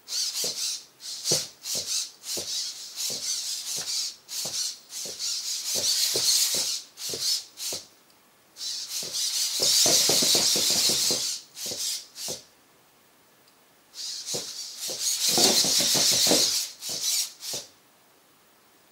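Hobby servo motors of a six-legged hexapod robot whirring in quick pulses as it walks in a tripod gait, with light taps of its metal feet on a wooden floor. It pauses briefly about eight seconds in, stops for a second and a half around twelve seconds, and falls still about a second before the end.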